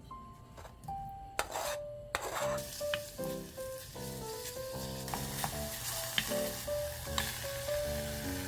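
Food sizzling as it fries in a hot pan, starting abruptly about a second and a half in and continuing steadily, under light background music with plucked notes.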